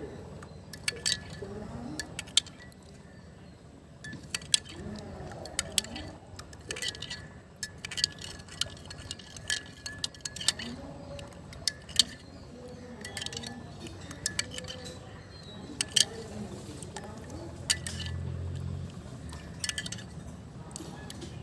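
Kitchen utensils clinking against cookware: irregular sharp clinks, many through the stretch, over a low steady hum.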